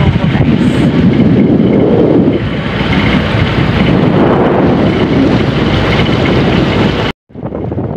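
Wind buffeting the phone's microphone on a moving boat, a loud low rumble. It cuts out abruptly about seven seconds in and comes back quieter.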